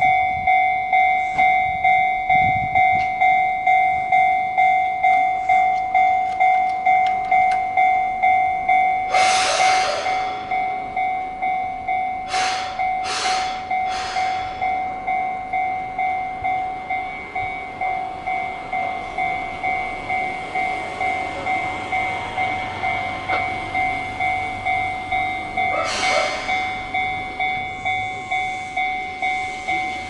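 A Japanese level-crossing warning bell ringing over and over, a steady repeating electronic ding, a little quieter from about ten seconds in. A few short rushes of noise break in around ten and twenty-six seconds in. Near the end a rising whine starts as the Keihan 600-series train approaches.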